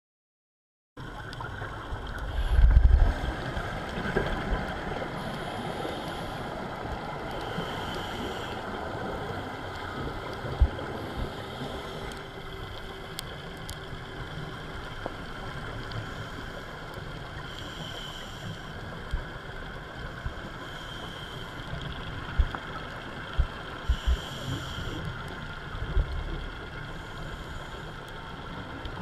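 Underwater sound picked up by a camera in its waterproof housing: a steady muffled hiss with a scuba diver's regulator breathing and exhaust bubbles swelling every few seconds. The sound cuts in about a second in, with a loud low rumble just after and a few sharp knocks of handling against the housing.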